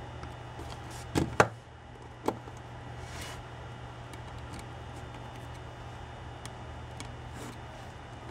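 Hard panels and small screws of a Raspberry Pi cluster case knocking and clicking as they are handled on a table: two sharp knocks about a second in, another about a second later, then a brief rustle and a few faint ticks. A steady low hum runs underneath.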